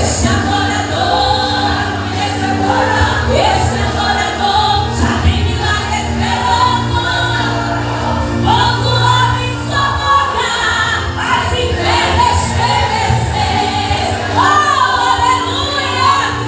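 A church choir singing a gospel hymn together, with instrumental accompaniment and a steady bass underneath.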